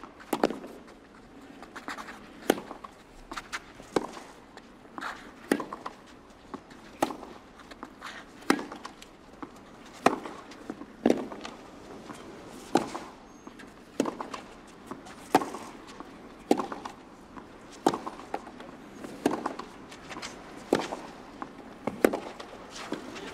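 Tennis rally on clay: the racket strikes the ball in a long, regular exchange, a sharp pop about every second and a half. Fainter ball bounces and footsteps come between the strokes.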